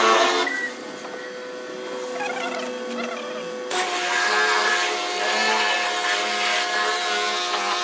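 Pressure washer running: a steady motor whine from the pump with the hiss of the water spray. It drops quieter about half a second in and comes back louder just before four seconds in.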